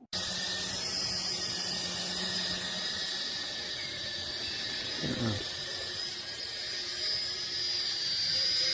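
Toy RC helicopter's small electric motors and rotors running: a steady high whine over hiss, with a brief falling sweep about five seconds in.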